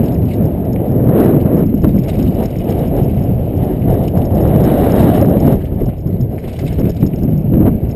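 A mountain bike ridden fast down dirt singletrack, heard close up through an action camera's microphone. There is a steady muffled rumble of tyres on dirt and wind on the microphone, with the rattle and knocks of the bike over bumps, and it eases briefly about six seconds in.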